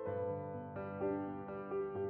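Soft background music led by piano, slow sustained notes changing every half second or so.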